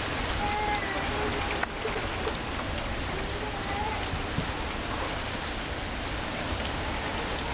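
Rain falling steadily during a thunderstorm, with a child crying in the background in two short wavering stretches. There is a single sharp click a little over a second and a half in.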